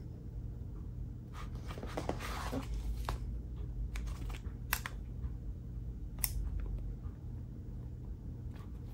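Handling noise: scattered light clicks and rustles as the PosiTector gauge and the hinged Defelsko calibration standard case are picked up and moved, over a low steady hum.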